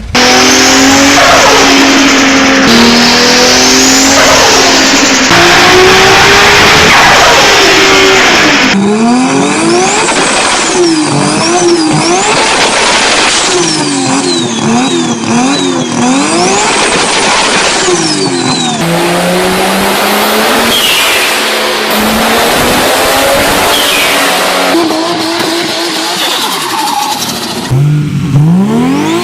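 Turbocharged car engines revved hard in a run of short clips, each rev sending the engine pitch up and back down. High whistling tones rise and fall above the engines. The first few clips are dominated by a loud rushing noise.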